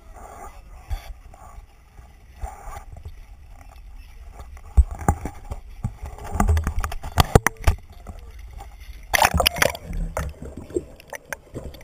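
Water sloshing and splashing against a handheld camera, with sharp knocks and bumps from about halfway through, then a loud rush of water and muffled underwater gurgling near the end.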